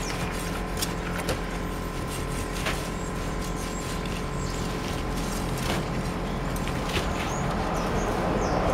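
Hand sickle scraping and chopping weeds out of bark mulch: irregular clicks and scrapes over a steady low hum. Near the end a broad rushing noise swells up.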